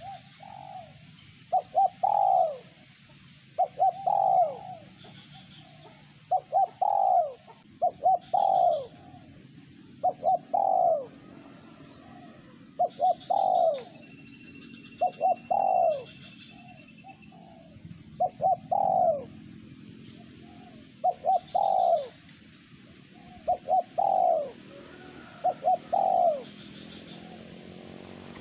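A dove cooing over and over: a short phrase of two or three quick coos repeated about every two seconds.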